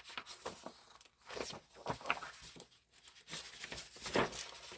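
Sheets of decorative paper rustling and crinkling as they are handled, with louder swells around two and four seconds in.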